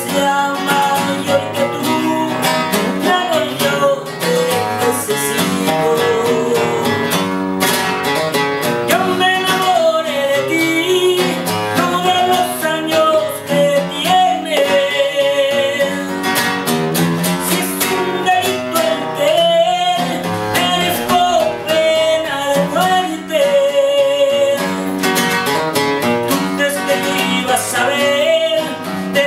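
A man singing while strumming a classical guitar.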